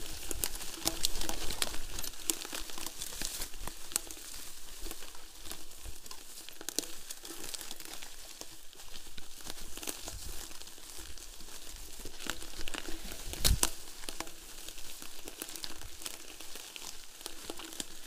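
Mountain bike riding through forest undergrowth: the tyres rustle over fallen leaves and plants brush against the bike, with many small clicks and rattles and one sharper knock about thirteen seconds in.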